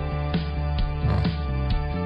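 Background music with a steady beat and repeating pitched notes over a strong bass.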